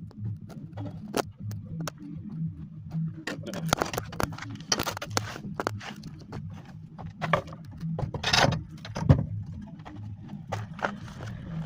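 Metal scaffold parts being handled: irregular clanks and knocks with scraping and rattling, the sharpest knock about nine seconds in, over a steady low hum.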